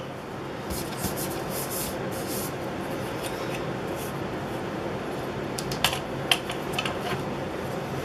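Yellow plastic cabinet hardware jig with a steel ruler being handled and repositioned against a cabinet door: light rubbing about a second in, then a few sharp clicks around six seconds, over a steady hiss.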